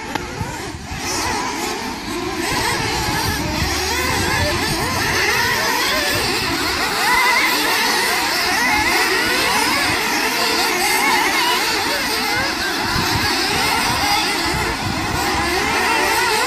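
Several radio-controlled off-road race cars running together, their motors rising and falling quickly in pitch as they accelerate and back off around the dirt track, getting louder a couple of seconds in.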